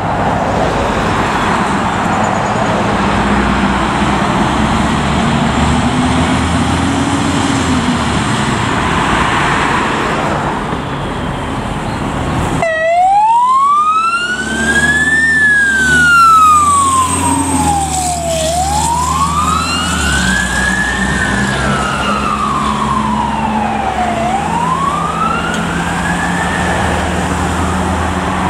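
Truck engine running with road noise. About halfway through, a fire engine's siren starts a wail, rising and falling slowly about every five and a half seconds over the steady engine.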